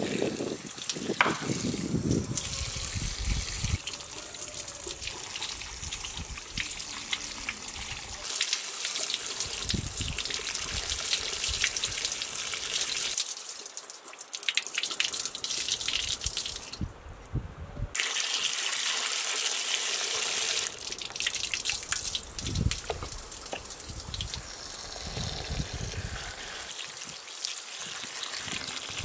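Water running from an outdoor metal tap into a clay bowl of dried berries being rinsed, splashing and spilling over the bowl's rim onto wet concrete. The sound of the flow changes abruptly several times.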